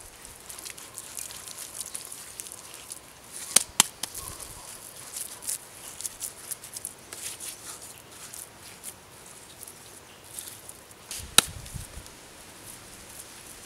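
Bare hands patting and smoothing wet mud around a small pit furnace and its clay pipe, with soft wet handling noises throughout. Three sharp knocks stand out: two close together about three and a half seconds in, and one later on.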